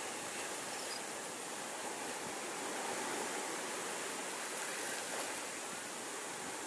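Steady rushing wash of sea water on the shore, an even hiss with no distinct breaks.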